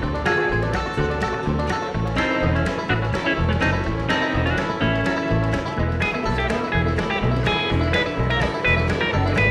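Background music: upbeat country-bluegrass tune with plucked banjo and guitar over a steady, even bass beat.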